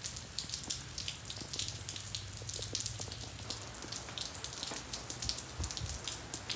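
Freezing rain falling and dripping from icicle-lined eaves: a dense, irregular patter of many small drops.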